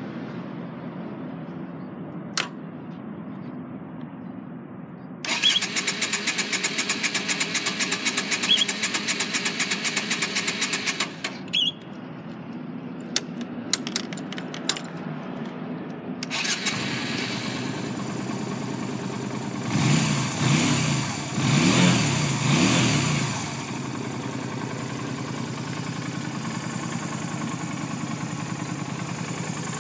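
Yamaha Drag Star 250's air-cooled V-twin being started. A first attempt about five seconds in gives a loud, fast, even rhythm that stops after about six seconds. A second attempt about sixteen seconds in catches. The throttle is blipped a few times, and the engine then settles into a steady idle.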